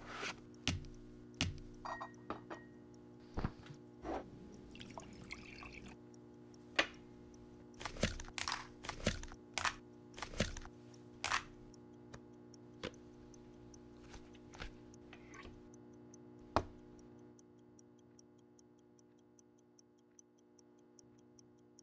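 Scattered sharp clicks and knocks of lunch things being handled (a plastic food container, dishes and utensils) over a steady low hum. In the last few seconds a clock ticks faintly and rapidly.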